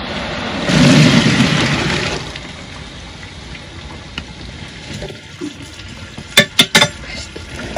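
Cubed potatoes tipped from a plastic basin into a pot of simmering tomato sauce make a loud splashing rush about a second in. Later a metal slotted ladle knocks three times against the metal pot as the potatoes are stirred.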